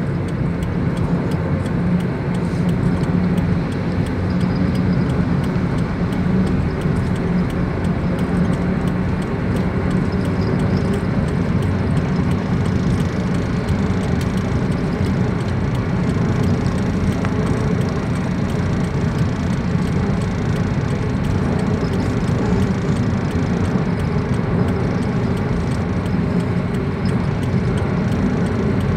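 Steady low rumble of a car driving along a road in a windstorm, with road and wind noise running together and no distinct events.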